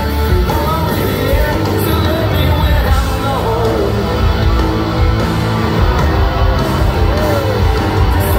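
Rock band playing live, with electric guitars, drums and bass under a sung lead vocal, heard from within a concert crowd.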